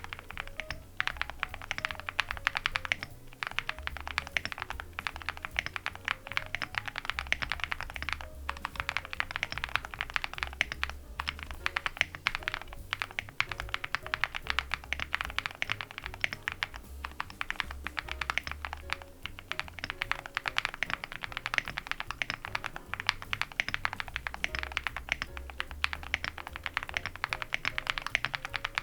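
Continuous fast typing on an Owlab Link65 mechanical keyboard with Gateron Moon Landing switches, an aluminium plate, full foam and dye-sub PBT keycaps: a dense clatter of keystrokes broken by a few brief pauses. Soft background music with a low bass line plays underneath.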